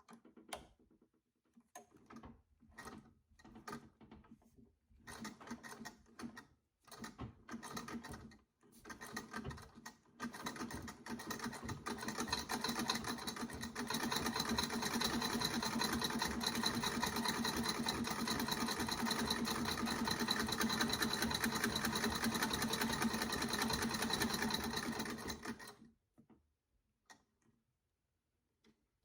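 Freshly restored 1899 Singer treadle sewing machine sewing. It starts slowly in separate stitches, picks up speed, runs fast and steadily, and stops a few seconds before the end.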